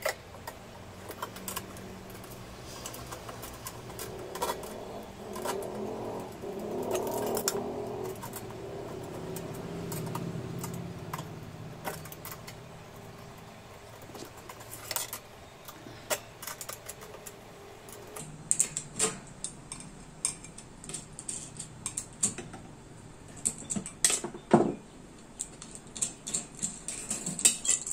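Scattered small metallic clicks and clinks of a spanner working the nuts of a stand fan's motor mount and of the wire guard being handled while the motor is unbolted, coming thicker and sharper in the last third.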